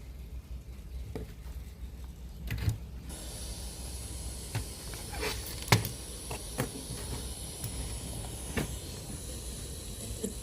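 Radio static hiss from a Sony CFS-1065S radio cassette player, with a steady high whine and low hum, starting about three seconds in. Several sharp clicks from the set being switched and handled come through it, as between stations.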